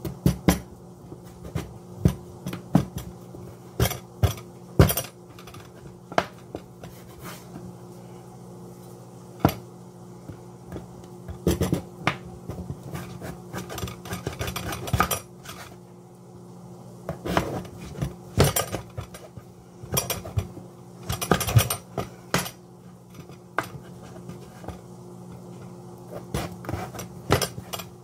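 Kitchen knife slicing through raw butternut squash and knocking on a wooden cutting board: irregular sharp taps, some in quick runs, over a steady low hum.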